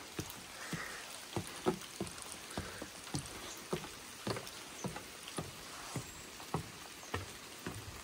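Footsteps climbing wooden treehouse stairs: a run of dull knocks, about two or three a second, over a light hiss of rain.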